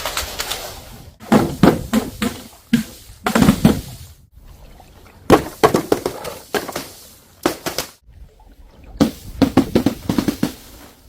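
Things being smashed and crushed: bursts of sharp cracking and crunching impacts in four clusters, each lasting about one to two seconds, with short pauses between.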